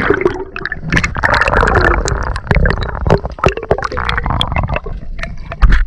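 Sea water sloshing and bubbling around a camera dipping just under the surface, heard muffled through the waterproof housing, with many sharp knocks and a loud low thump near the end.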